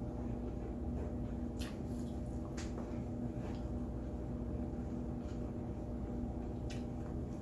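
A person chewing steak close to the microphone, with a few soft clicks from the mouth over a steady low hum.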